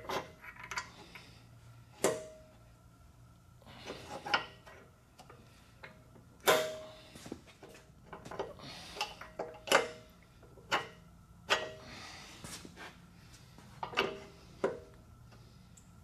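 Steel spacers and a steel pivot pin being fitted by hand into a backhoe dipperstick's pin mount: irregular light metallic clinks and knocks, several ringing briefly.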